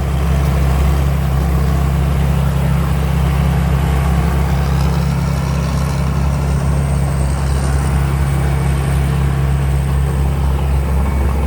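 Rice combine harvester's diesel engine running with a steady, unchanging low drone.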